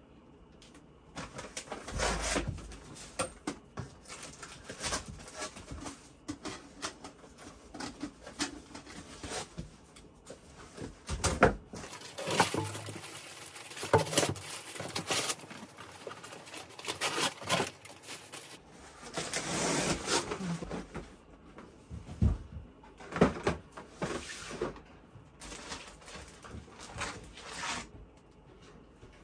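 Objects being handled and sorted: irregular rustling of plastic bags and paper with light knocks and clatters of small items, including a longer rustle about two-thirds of the way through.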